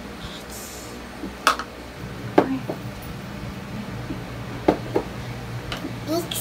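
A few separate knocks and clinks of a wire whisk and glass and plastic mixing bowls on a table as waffle batter is mixed by hand, one clink with a short ring.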